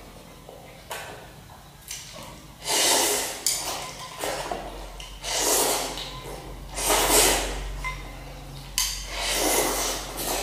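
A boy eating instant noodles, with four loud, hissing intakes of air about two to three seconds apart: slurping noodles and sniffing.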